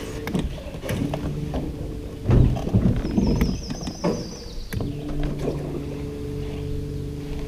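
Small fishing boat's motor humming steadily while the boat squeezes through a narrow channel, with knocks and bumps on the hull. The hum stops for about two seconds in the middle, when the knocking is loudest, then starts again.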